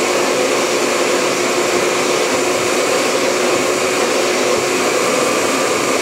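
Vacuum cleaner running steadily: a loud, even rush of air with a constant hum.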